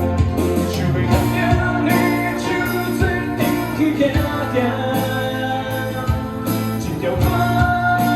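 Band playing an instrumental passage of a song, with guitars, bass and a drum kit keeping a steady beat.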